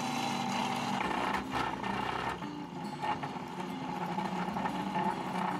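Cold saw's circular blade cutting through a square metal bar, running with a steady whine and scattered irregular clicks; the blade has a broken tooth.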